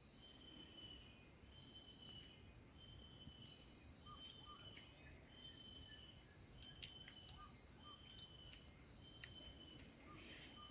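Insects trilling steadily at a high pitch, faint, with a second, lower insect-like call repeating in short notes about once a second.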